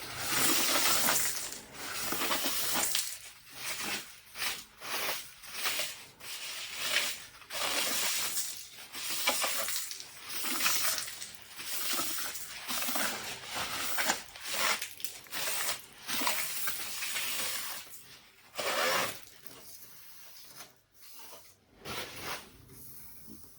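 Plastic cable trunking and DIN rail being fitted to a control panel's backplate: irregular scraping and rubbing strokes, roughly one a second, that thin out near the end.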